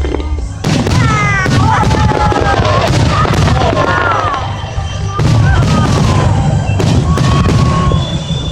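Fireworks going off: a rapid series of sharp bangs and booms, many close together.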